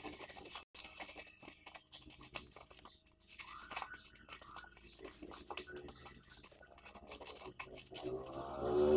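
Scissors cutting a sheet of paper in a run of short repeated snips. Near the end a brief, louder pitched sound with many overtones comes in over the cutting.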